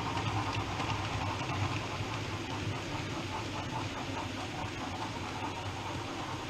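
OO gauge model train running on the layout: a steady running noise of small motors and wheels on track.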